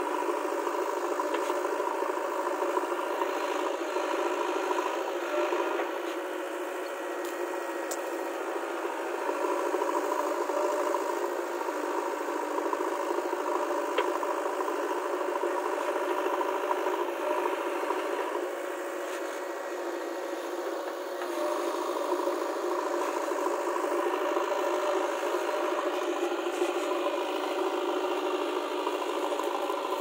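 JCB 3DX Eco backhoe loader's diesel engine running steadily under load while the backhoe digs and loads soil, with rattling and clanking from the arm and bucket. The engine sound eases slightly twice, about a third of the way in and again past halfway.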